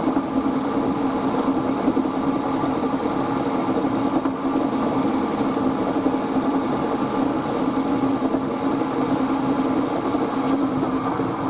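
An electric workshop machine running steadily: a constant motor hum over a rough, even noise, as when metal is being worked.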